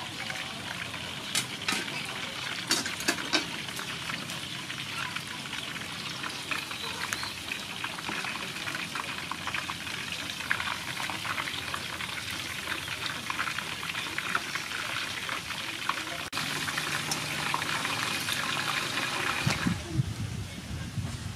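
Skin-on pork deep-frying in a pot of hot oil: a dense, steady crackle and sizzle, with several sharp pops in the first few seconds.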